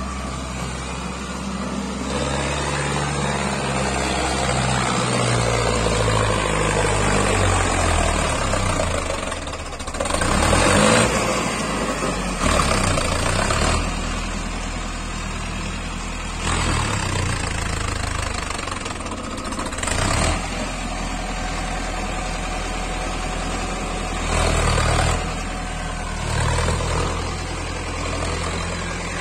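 Mahindra Arjun 605 4×4 tractor's diesel engine working under load as it hauls a loaded trailer over soft dirt. Its pitch shifts up and down, with several brief louder surges of revving.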